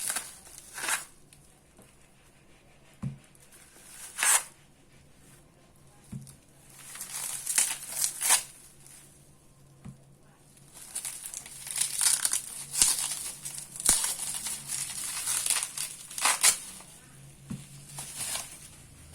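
Packaging crinkling and rustling in repeated bursts as it is handled and torn open by hand, with a few light taps in between.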